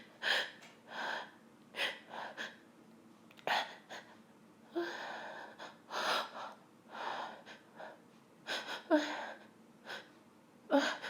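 A woman's short, catching gasps and sniffs, about a dozen uneven breaths, a few with a small voiced catch. This is the tickly breathing of a pepper-induced sneeze fit, with no full sneeze here.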